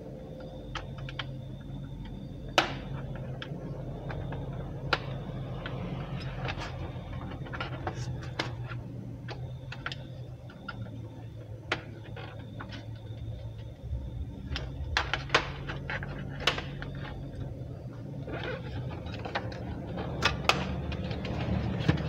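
Acer Z1402 laptop's plastic bottom case being pried open with a pry tool: scattered sharp clicks and snaps as the case's retaining clips let go, over a steady low hum.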